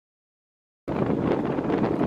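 Almost a second of dead silence, then heavy wind buffeting the microphone starts abruptly and keeps up a dense, rumbling rush.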